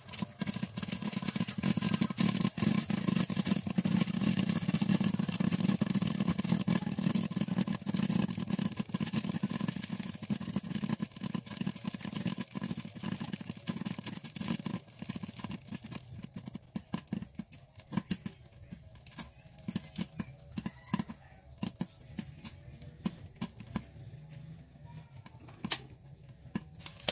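Popcorn kernels popping in a covered frying pan with a glass lid: rapid, dense popping that thins out about halfway through to scattered pops as the batch nears done. A low hum lies under the busiest stretch.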